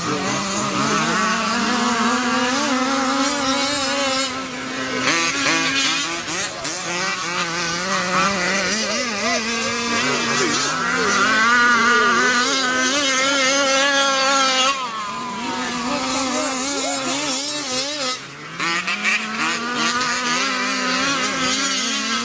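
OBR Hybrid 34 reed-case two-stroke engine in an RC buggy running hard at high revs. Its pitch climbs sharply about four times as the car accelerates, holds a steady high note, and falls back when the throttle is eased.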